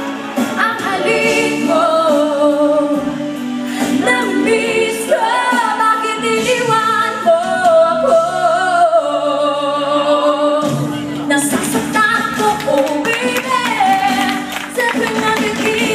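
A woman singing a slow melody into a microphone, amplified, over steady sustained accompaniment, holding and gliding between long notes.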